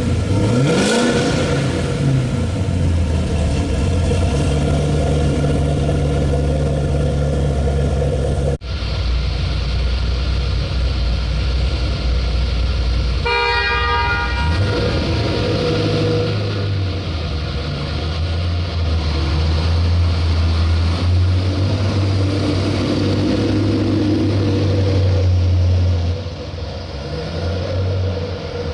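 Kenne Bell–supercharged 6.2-litre V8 of a 2010 Chevrolet Camaro SS, breathing through long-tube headers and a Flowmaster American Thunder exhaust. It is blipped once near the start, then runs steadily as the car drives slowly. A short car horn blast comes about halfway through, and the engine sound drops near the end as the car moves away.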